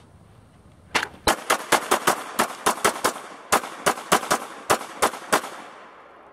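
Walther PPQ M2 9mm pistol fired in a fast string, about fifteen rounds in roughly four and a half seconds, emptying the magazine. There is a brief pause about halfway through, and each shot carries a short echo tail.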